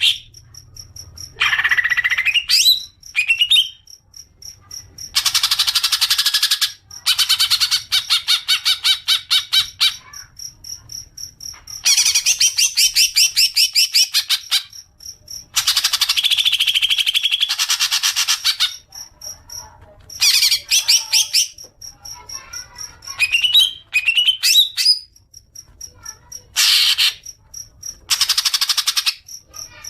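Green leafbird (cucak ijo) singing in long bursts of rapid, evenly repeated chattering notes ('ngekek'), each burst one to three seconds long with short pauses between, and a few quick rising whistled notes between bursts.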